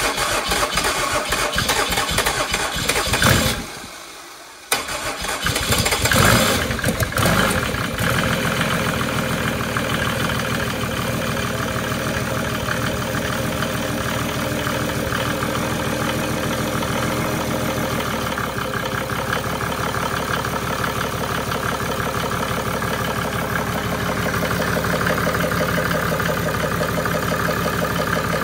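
A turbocharged Mercedes OM603 inline-six diesel engine, standing bare on the shop floor, is started on the test stand. It falters about three and a half seconds in, catches again near five seconds, and settles into a steady idle by about eight seconds. This is its first run after sitting unused for many years, and it is running a little smoky.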